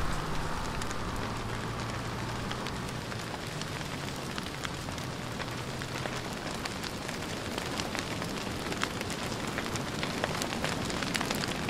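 Semi-trailer truck's engine humming as it drives away, fading out over the first several seconds. A steady hiss dotted with sharp crackling clicks runs under it and carries on after the truck is gone.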